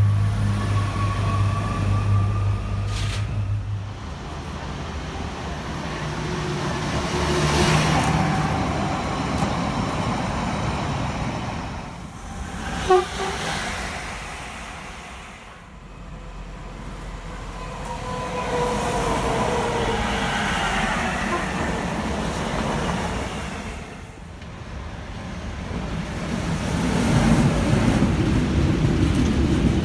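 A series of electric trains passing: a regional double-deck train moving along the platform, then a class 186 electric freight locomotive, then a freight train of curtain-sided intermodal wagons going by, the loudest part near the end. A short sharp sound comes a little before halfway.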